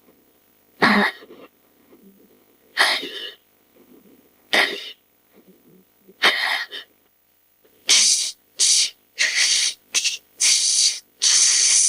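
Edited creature sound effects for a fictional raptor-like alien: short, sharp, breathy bursts about every second and a half, then a quicker run of hissy bursts through the last four seconds.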